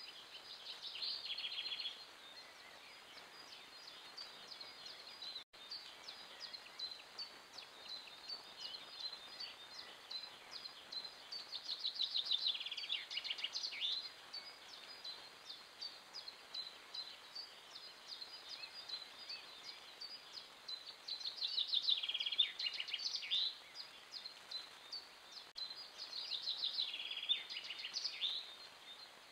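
A songbird singing four short phrases of rapid high notes, each about two seconds long and ending lower, over faint scattered chirps of other birds.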